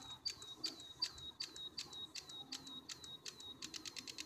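Electronic toy bird chirping through its small speaker: a short high chirp, each starting with a click, repeated about three times a second, then speeding up near the end into a fast rattling trill.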